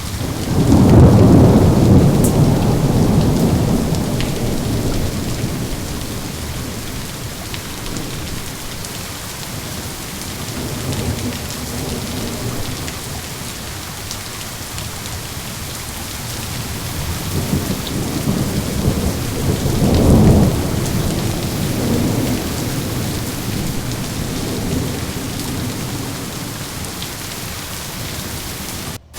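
Steady rain with rolling thunder. A loud low rumble breaks about a second in and fades away over several seconds, and a second rumble builds and peaks about twenty seconds in. The sound cuts out for an instant just before the end.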